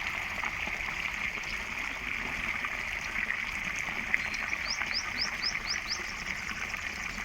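A bird calls a quick run of about six short, rising chirps past the middle, over a steady outdoor hiss of water or insects. A single sharp click sounds a little after the midpoint.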